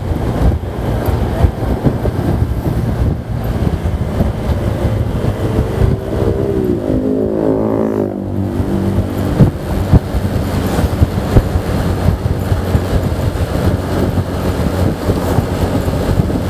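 Wind buffeting the microphone on a moving Honda Vario 125 scooter, over the steady drone of its 125 cc single-cylinder engine at cruising speed. A brief wavering pitched sound rises and falls about halfway through.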